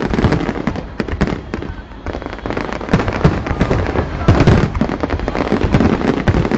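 Fireworks going off: rapid bangs and crackling with deep booms among them, thinning out briefly about two seconds in, then dense again.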